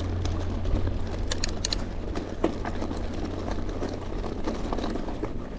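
Mountain bike rolling along a dirt singletrack: tyre noise and rattling from the bike, with wind rumbling on the microphone and a quick run of sharp clicks about a second and a half in.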